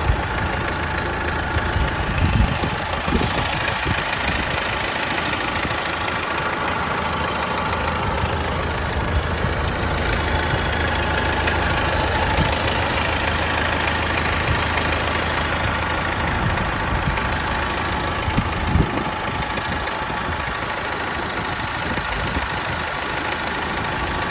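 Vauxhall Astra 1.6 diesel engine idling steadily, with a couple of brief knocks. It is running after a timing belt change, which the owner says made the engine's rattle disappear.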